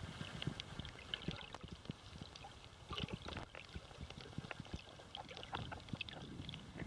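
Underwater sound picked up by a submerged camera: a faint watery hiss with many irregular small clicks and pops scattered throughout.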